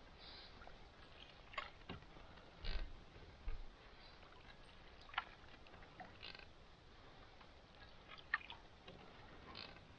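Canoe paddle strokes: quiet dips, swishes and drips of water off the paddle every second or so, with a couple of soft low knocks about three seconds in.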